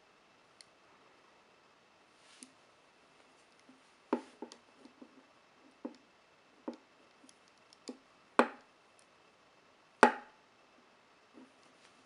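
Rigid-bar Speedcuffs handcuffs clicking and knocking against a tabletop as the cuffed wrists twist and shift. The clicks are scattered, mostly from about four seconds in, with the two loudest knocks near the end.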